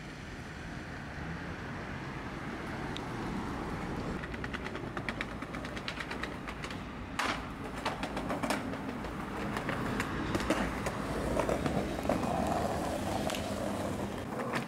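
Skateboard wheels rolling over pavement, a steady grinding rumble, with sharp clacks of the board striking the ground, the loudest about halfway through and a flurry of smaller ones near the end.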